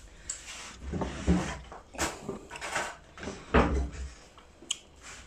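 Eating noises from a plate: scattered knocks and clicks of fingers and fish bones against the plate as a fried snoek head is picked apart by hand. There are a few dull thumps on the table, the loudest about three and a half seconds in.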